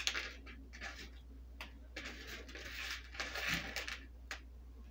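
Sprinkles pinched and scattered onto a chocolate-coated pretzel rod, pattering in a few short, soft rustles onto a paper plate, with a steady low hum underneath.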